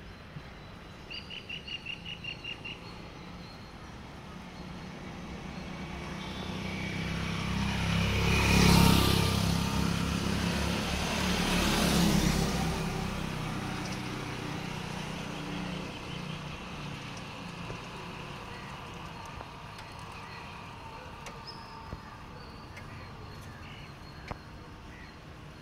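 Road traffic passing close by: two motor vehicles go past about three seconds apart, each swelling and then fading away. A bird gives a quick run of about eight chirps in the first few seconds.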